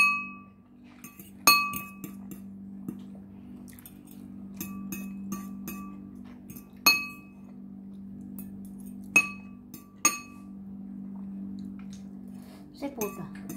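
Metal fork clinking and scraping against a ceramic bowl while picking up noodles, each strike ringing briefly. A handful of sharp clinks stand out, with softer taps between, over a steady low hum.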